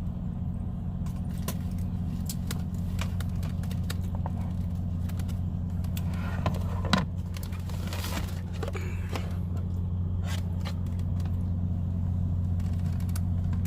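Steady low hum of an idling truck engine heard inside the cab, with scattered clicks and clinks of utensils and food containers being handled; one louder clink comes about halfway through.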